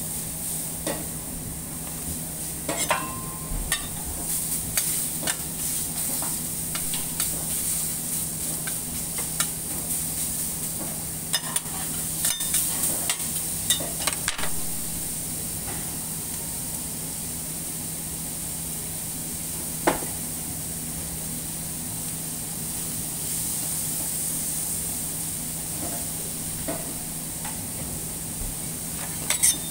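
Beef sizzling on a stainless-steel flat-top teppan griddle: a steady hiss with many sharp pops and clicks, thickest in the first half, one loud pop about two-thirds of the way through and another near the end. A steady low hum runs underneath.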